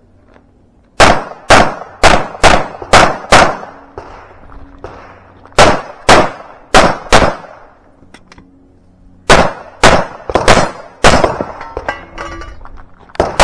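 Pistol shots fired in quick succession on a timed match stage, in three strings: about six shots, then four, then six or seven, each string about two seconds apart.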